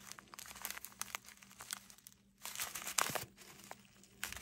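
Small plastic zip-lock bag of diamond-painting drills crinkling lightly as fingers handle and squeeze it, in irregular crackly bursts with a short lull around two seconds in and the loudest crinkling about three seconds in.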